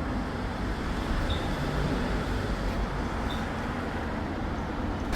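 Kia Carnival's engine idling steadily with the air conditioning running for a refrigerant recharge. A faint short high beep sounds about every two seconds.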